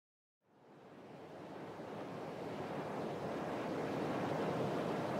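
A steady, wind-like rushing noise fades in from silence about half a second in and grows gradually louder.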